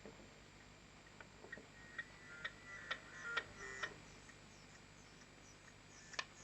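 Faint, sparse ticks and a few short high notes from a small conduction speaker, driven by a PAM8302A class D amplifier, playing audio from a phone. They come irregularly in the first half and fade out.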